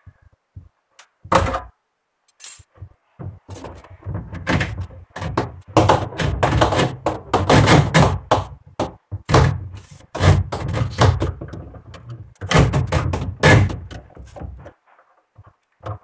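Irregular thunks, knocks and scraping of a corrugated plastic drain hose being pulled and threaded by hand through a Consul Super Jato washing machine's plastic cabinet. A few separate knocks come first, then a longer stretch of dense rubbing and bumping.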